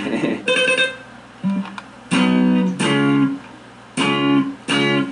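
Electric guitar played in short strummed chords: about six chords, mostly in pairs, each ringing for half a second or less before being damped, with short quiet gaps between.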